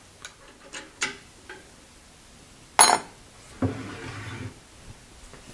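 Light metal clicks and taps as steel lathe fittings are handled, with one sharp metallic clank about three seconds in.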